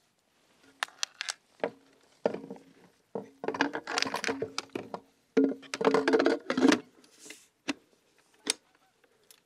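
Plastic e-bike battery pack being fitted back into its mount along the frame's down tube: clicks, knocks and scraping of the battery case against the frame, busiest in the middle, with one more sharp click near the end.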